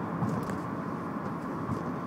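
Nissan Altima running with an annoying tapping noise: a steady drone with a faint constant tone, and a few light, sharp, irregular taps.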